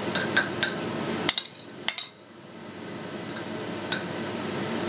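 Metal spoon clinking against a ceramic plate and clay pot while fried mushrooms are spooned into the pot: a few light taps in the first second, two sharper clinks a little after one and two seconds in, and a couple of faint taps later.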